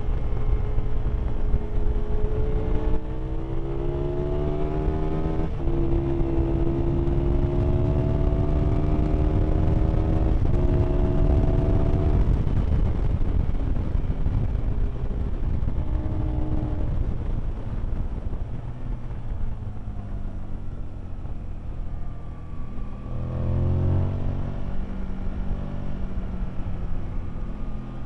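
Aprilia Tuono motorcycle engine heard from on board under hard acceleration, its pitch climbing through the gears with a drop at each upshift, about 5 and 10 seconds in. In the middle the engine note fades under a steady rush of wind, then it pulls hard and rises again near the end.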